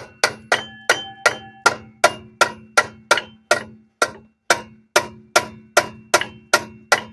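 A hammer striking metal again and again, nearly three blows a second, each blow ringing briefly. The blows are aimed at knocking free a water pump held on by a bolt rusted into the cast-aluminium engine block.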